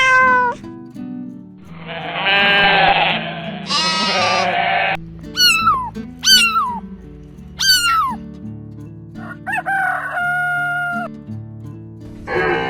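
Farm animal calls one after another over steady background music: two longer rough calls, then three short calls that drop sharply in pitch, then a longer, steadier held call.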